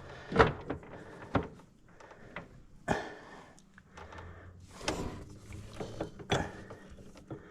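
Scattered clicks and knocks of metal drivetrain parts being handled while a U-joint is worked on, half a dozen separate hits with short gaps between.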